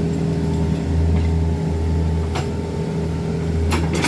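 Excavator diesel engine running steadily at an even pitch, with a few sharp clicks near the end.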